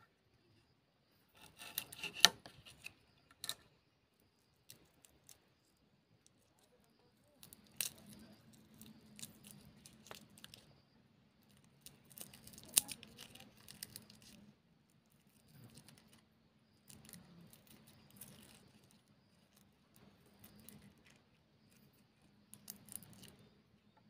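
Garlic cloves being peeled by hand on a wooden chopping board, the papery skins crackling and tearing in short bursts, with sharp clicks and taps from the knife and cloves on the board.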